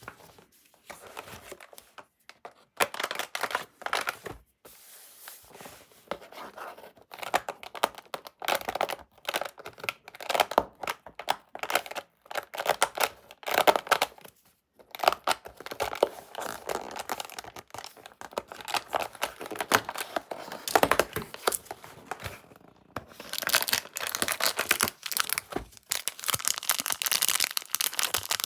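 Haribo candy packaging being torn open and crinkled by hand, in irregular spells of crackling with short pauses, busiest near the end.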